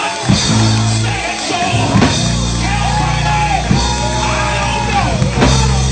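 A man singing gospel into a microphone, holding and bending long notes over live band accompaniment with sustained low notes and sharp rhythmic strokes, amplified in a large hall.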